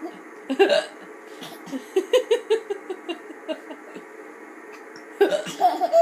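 A small child's hiccups: a sharp one about half a second in and another about five seconds in, with short giggles between them and after the second.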